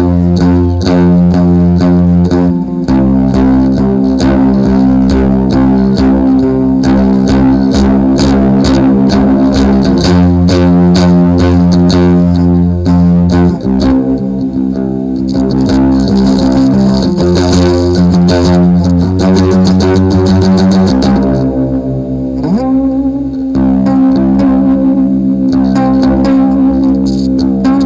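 Instrumental music led by guitars and bass guitar, with no singing; the low bass notes and chords shift every few seconds.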